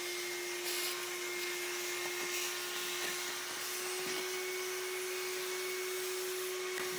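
A small electric motor running steadily: a constant whine at one pitch over an even hiss.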